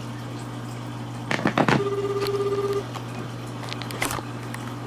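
Japanese telephone ringback tone, a buzzing purr about a second long, sounding once about two seconds in while the called phone rings unanswered. Two short bursts of splashing water come around it, over a steady low hum.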